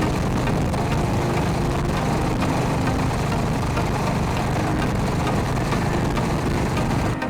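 Honda GB350's single-cylinder engine running steadily under way, mixed with a constant rush of wind noise. The sound cuts off abruptly at the very end.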